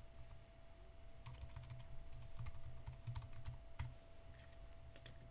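Faint keystrokes on a computer keyboard, typing a password in a few quick runs of taps with short pauses between, over a faint steady hum.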